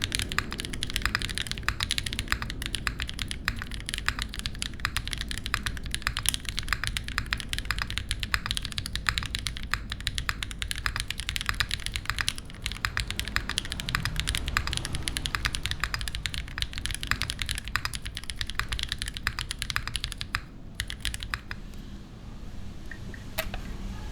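Fast, continuous typing on a RAMA Works Thermal mechanical keyboard with stock-lubed Aflion Melody switches, a polished aluminium beam plate, a leaf-spring mount and GMK doubleshot ABS keycaps. The typing stops about three-quarters of the way through, leaving a few single keystrokes near the end.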